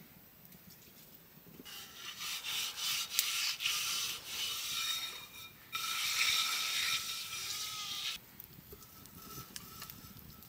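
Rough rubbing or scraping in two long stretches, the first about three and a half seconds and the second about two and a half, with a short pause between them.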